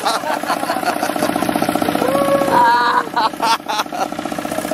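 Open single-cylinder diesel engine of a kuliglig hand tractor running under way with a rapid, even beat. A person's voice calls out briefly about two seconds in, followed by a few sharp knocks.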